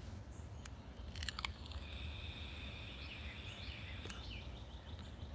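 A few faint clicks, then a draw on a box-mod vape: quiet crackling with a thin steady hiss for about two seconds.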